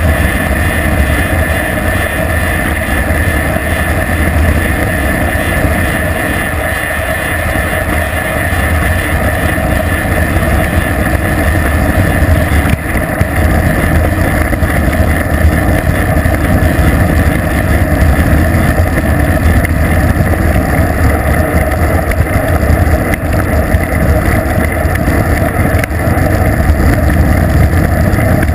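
Steady rush of wind buffeting a bicycle-mounted GoPro camera's microphone, with road noise, as the bike coasts fast downhill on pavement.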